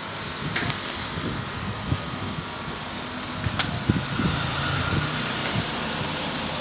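Steady mechanical running noise, low and continuous, with a few short sharp clicks.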